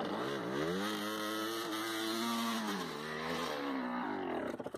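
Honda CR250's two-stroke single-cylinder engine revving hard under load while the rear wheel spins in loose dirt and rocks on a steep climb. The revs rise, hold high, dip briefly and climb again, then cut off suddenly just before the end.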